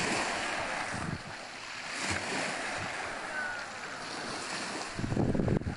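Sea surf washing on a pebble beach, with wind rumbling on the microphone, loudest about five seconds in.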